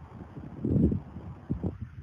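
Wind buffeting a phone microphone outdoors: low, rumbling puffs, with two stronger gusts in the middle and near the end.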